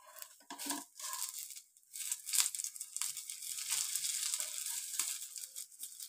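Oil sizzling under potato-poha cutlets shallow-frying on a dosa tawa, with a steel spatula scraping the pan as the cutlets are lifted and flipped. The sizzle grows steady about two seconds in.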